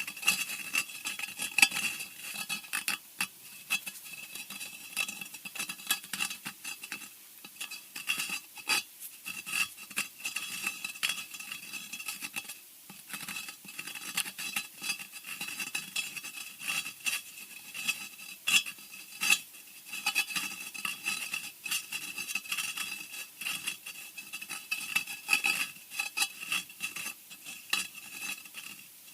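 Scratching sound effect for horror: a continuous, irregular run of small scrapes and clicks with a steady high ring beneath them.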